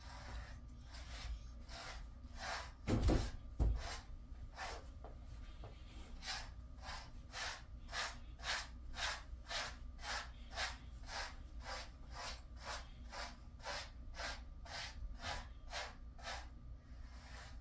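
Grooming brush rasping through a Jindo dog's coat in short repeated strokes, about two a second. About three seconds in there are two louder dull thumps as the dog shifts and sits up on the mesh cot.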